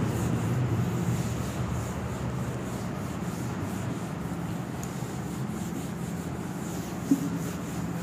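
Whiteboard duster rubbing across a whiteboard, wiping off marker writing with a steady scrubbing sound, and a short knock about seven seconds in.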